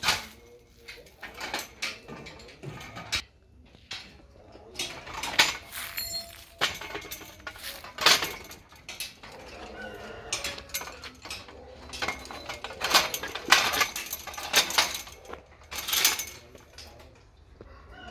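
Irregular clinks, knocks and rustles of hand work with metal parts, a dozen or so sharp knocks standing out, the loudest about eight and thirteen seconds in.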